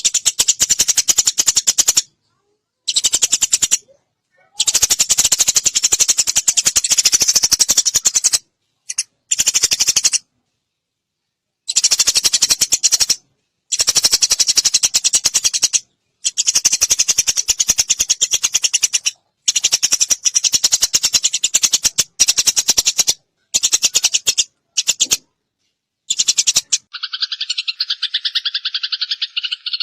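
Eurasian tree sparrows giving fast, harsh chattering fight calls, in bursts of a few seconds broken by sudden silent gaps. Near the end the chatter gives way to a steadier, more tonal call.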